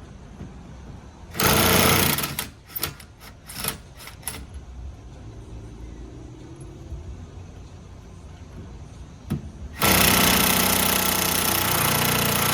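Impact wrench hammering on a wheel lug nut: a burst, a few short blips, then a long burst of about three seconds near the end. The lug nut is stripped too badly to come off.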